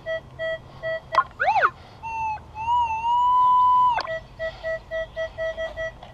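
Electronic beeping from a handheld metal-detecting pinpointer, pulsing at about five beeps a second as it sits near a metal target. About a second in, the beeping gives way to a tone that swoops up and down, then a long held tone from about two to four seconds in, after which the rapid beeping resumes.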